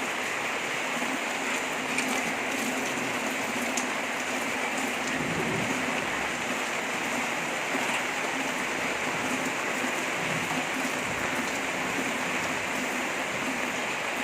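Heavy rain falling steadily, an even, dense hiss, with a few faint clicks over it.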